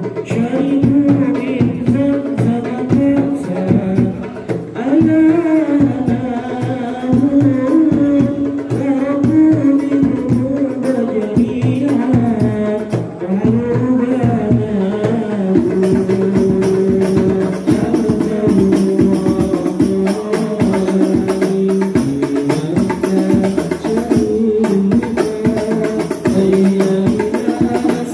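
Hadroh ensemble performing: male singers sing a melody into microphones over a steady rhythm of rebana frame drums and a bass drum. From about halfway through, the drumming grows fuller and brighter.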